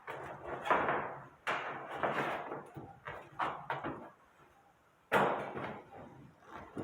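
Hand sheet-metal snips cutting steel sheet along a scribed circle: a series of short, crunching cutting strokes with metallic clicks. The loudest stroke comes about five seconds in, after a brief lull.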